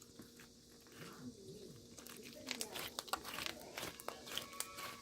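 Slime being squeezed and worked by hand, making crinkling and crackling clicks that grow dense about halfway through.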